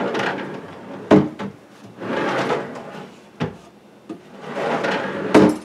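Plywood drawer slid in and out on metal side runners three times. Each slide is a long rumble that ends in a knock as the drawer hits its stop.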